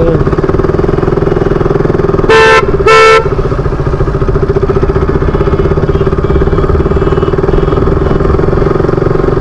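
KTM RC 200's single-cylinder engine running steadily while riding through traffic. A vehicle horn honks twice in quick succession about two and a half seconds in, louder than the engine.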